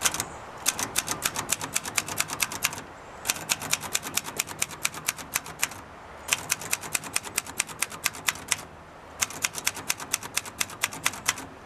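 A 1965 Singer Scholastic Model T4 portable typewriter, a rebranded Royal Lark, being typed on: four quick runs of keystrokes, about seven typebar strikes a second, with short pauses between the runs.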